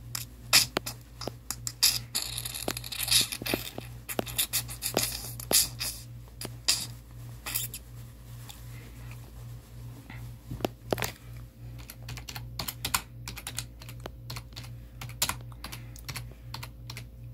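Computer keyboard typing: irregular clicking keystrokes, with a brief rustling scratch early on and a steady low hum underneath.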